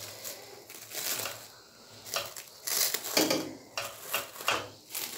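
Plastic cling film crinkling as it is pulled by hand off a set dessert in a pan, in irregular crackles that come and go, louder in the second half.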